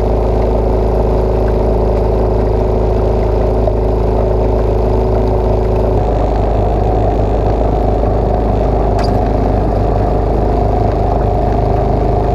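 Small single-cylinder 5 hp Briggs & Stratton boat motor running steadily at a constant speed, pushing the jon boat across the water.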